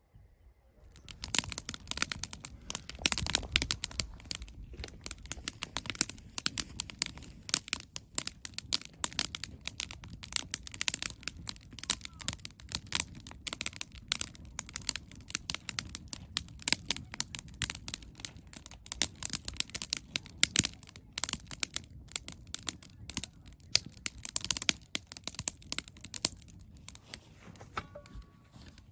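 Wood fire crackling and popping, with dense irregular snaps over a low rumble starting about a second in.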